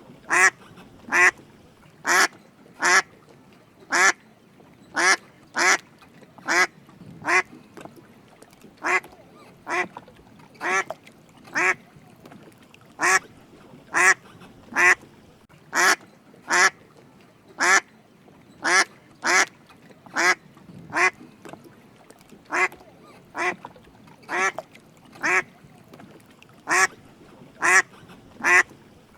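Drake mallard quacking: short calls repeated a little more than once a second, often in pairs.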